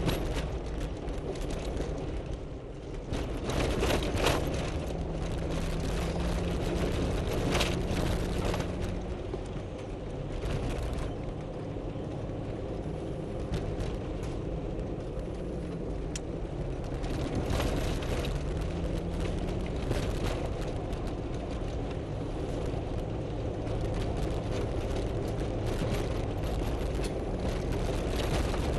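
Four-wheel-drive vehicle crawling along a rough, rocky dirt trail: the engine runs steadily under tyre and suspension noise, with several sharp knocks and rattles as it goes over bumps.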